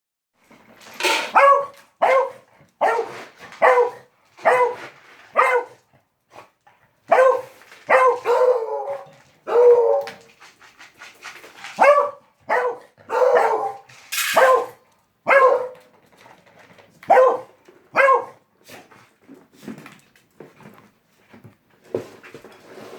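A dog barking repeatedly, with short loud barks roughly one to two a second, then only softer, scattered sounds for the last few seconds.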